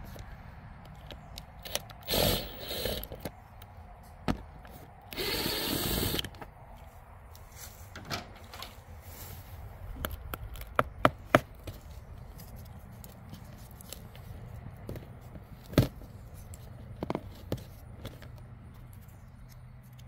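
Cordless drill-driver with a square-drive bit backing out the screws of an old camper marker light, in two short runs about two and five seconds in. These are followed by a few sharp clicks and taps as the fixture is handled off the siding.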